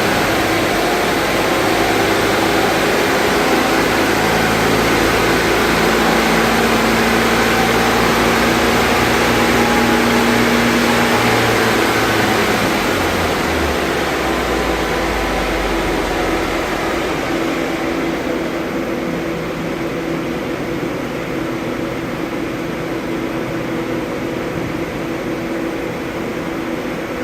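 Mk1 Vauxhall Cavalier engine running hard on a rolling road, with the rollers and cooling fan running. About twelve seconds in, the engine note falls away as the revs drop, and the noise settles to a lower, steady whirr.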